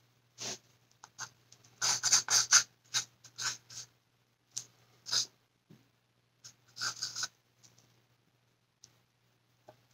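Short clusters of quick scratchy scrapes from a small hand tool worked against a hard surface, the busiest run about two seconds in.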